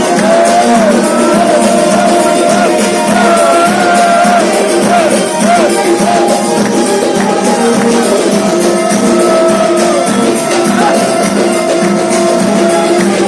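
Music: a wavering, ornamented melody over a steady rhythm of hand percussion with a tambourine-like jingle.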